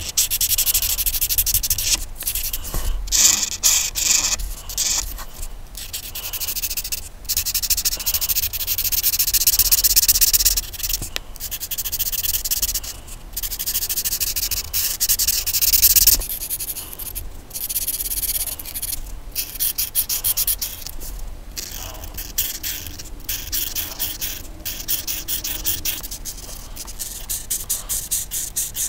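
Colouring strokes rubbing and scratching rapidly back and forth across a paper page, broken by short pauses every second or few.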